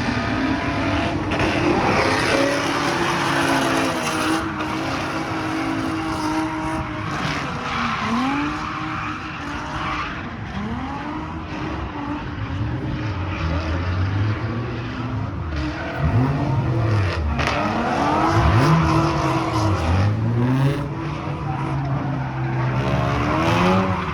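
A drift car's engine revving up and falling back again and again, over tyres squealing and skidding as the car slides.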